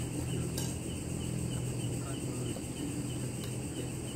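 Steady chirring of night insects, over a constant low hum, with a few faint clicks and one sharp click at the very end.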